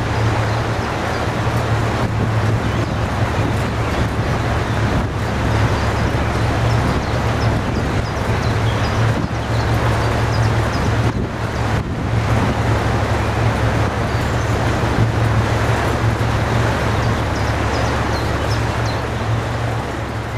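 Steady low drone and rumble of an inland cargo barge's diesel engine as the barge moves out of the lock, fading out at the end.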